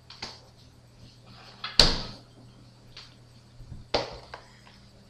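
Refrigerator door being shut, one sharp bang about two seconds in, with a few lighter knocks before and after it.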